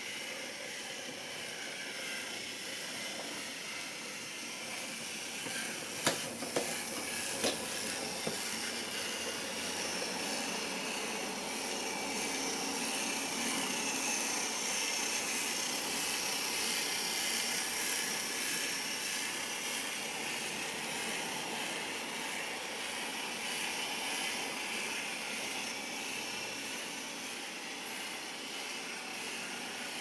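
Steady rushing noise throughout, with a few sharp clicks about six to eight seconds in from the buttons of a handheld camera remote being pressed.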